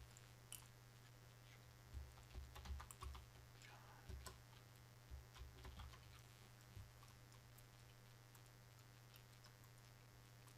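Faint typing on a computer keyboard, a scattering of quick key taps between about two and six seconds in, over a low steady hum.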